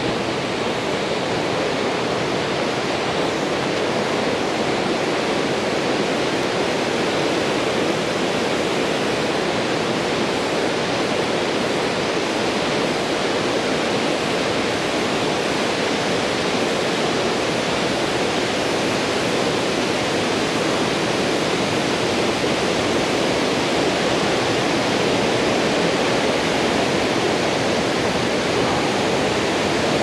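Steady rush of a mountain river cascading over waterfalls in a gorge, running with a high flow of water.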